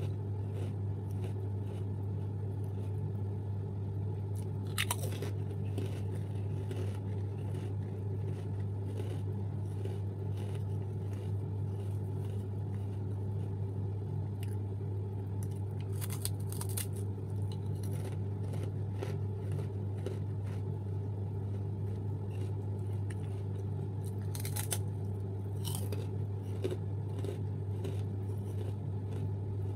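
Chewing and crunching on Want Want rice crackers, with a few sharper crisp bites standing out at intervals, over a steady low hum.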